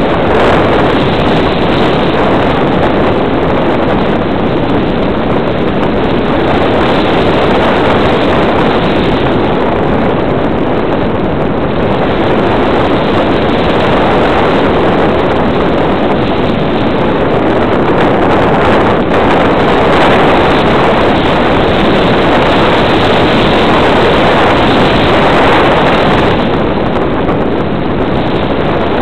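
Loud, steady rush of airflow buffeting the microphone of a camera carried in flight.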